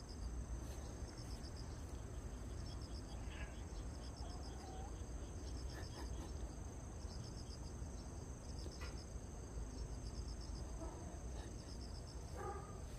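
Insects chirping in the grass: a steady high-pitched trill with short runs of fast, pulsing chirps repeating every second or so, over a low rumble.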